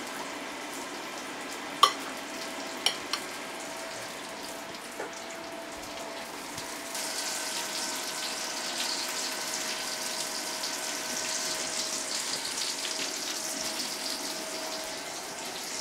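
Breaded schnitzel frying in hot fat in an iron pan, a steady sizzle that grows louder about seven seconds in. A few light clicks come early on, and a faint steady hum runs underneath.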